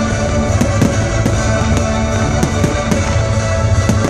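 Pyromusical fireworks display: loud music played over loudspeakers, with firework shells going off in repeated sharp bangs and crackles, several a second at irregular spacing.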